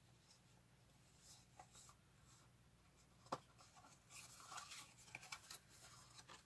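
Faint handling noises of hands working with small product packaging: a single sharp click about three seconds in, then soft rustling and scraping from about four seconds on.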